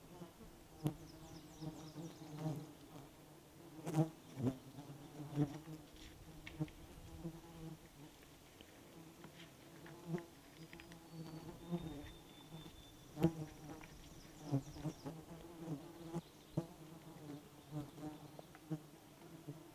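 Flying insects buzzing close by, a low hum that swells and fades as they circle, with scattered sharp clicks.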